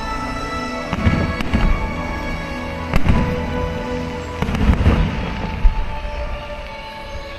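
Fireworks shells bursting in deep booms and crackles: a few single bangs, then a quick cluster about halfway through, over steady background music.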